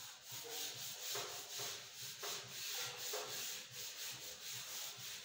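Handheld eraser being rubbed back and forth across a whiteboard, wiping off marker writing: a dry scrubbing hiss that swells and fades with each stroke.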